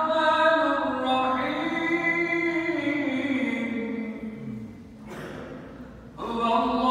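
A man's voice chanting a long, slow melismatic phrase in Arabic that gradually falls in pitch. A breath is drawn about five seconds in, and the voice starts a new phrase near the end.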